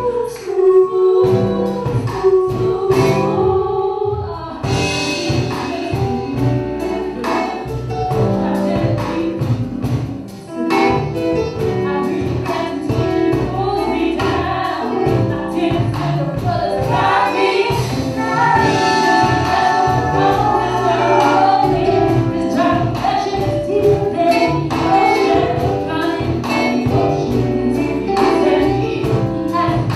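Live band playing, with a woman singing lead into a microphone and backing vocals, over drums, keyboards and electric guitar. The music dips briefly about ten seconds in, then carries on.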